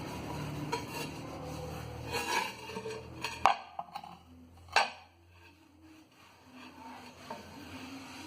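Microwave part being scrubbed and handled during cleaning: rubbing and light clinks of dishware, over a low hum that cuts off with a sharp knock about three and a half seconds in; a second sharp knock follows about a second later.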